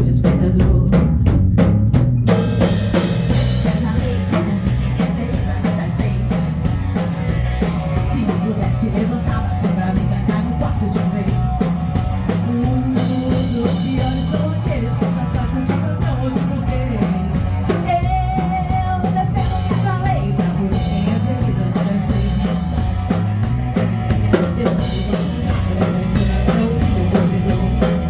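A rock band playing an instrumental passage, recorded raw in a rehearsal studio: a drum kit with snare and bass drum on a steady beat, under bass guitar and guitar. The drumming gets busier and brighter about two seconds in.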